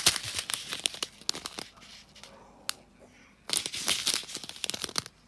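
Small clear plastic bags of diamond-painting rhinestones crinkling as they are handled, in two spells with a quieter pause around the middle.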